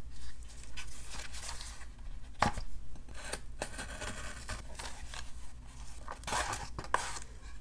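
Scissors snipping through a paper band wrapped around a cardboard mailer box, with a few sharp snips among paper rustling and the box being handled.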